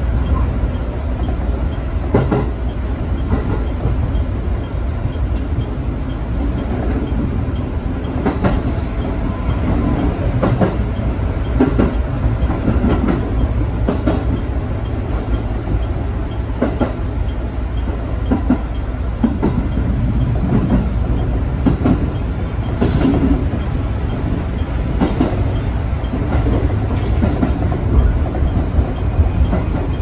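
Electric commuter train running along the line, heard from inside the driver's cab. A steady low rumble of motors and wheels is broken by irregular clicks and clacks of the wheels over rail joints.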